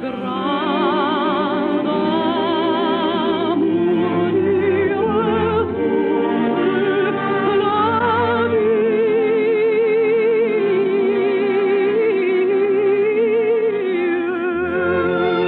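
A baritone singing a slow love song in a trained, operatic style with strong vibrato and long held notes, over orchestral accompaniment.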